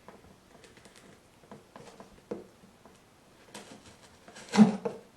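Utility knife slicing through a thick corrugated cardboard box, making scattered scratchy scrapes and small clicks, with one louder burst near the end.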